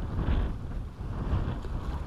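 Wind buffeting the microphone over water sloshing in the shallows, swelling briefly twice.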